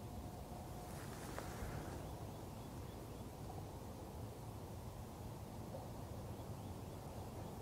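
Faint, steady outdoor ambience: a low, even rushing noise with no distinct events, with a brief brighter swell of hiss about a second in.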